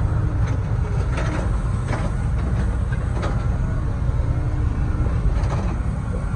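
Heavy diesel excavator machinery running steadily, heard from inside the operator's cab: a continuous low engine rumble with a few faint clanks.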